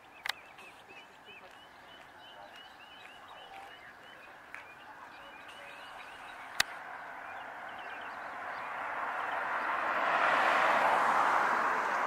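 A bird calling in a quick series of short chirps, about three a second, for the first few seconds. Then a vehicle approaching on the road, its tyre noise swelling to a peak near the end, with one sharp click partway through.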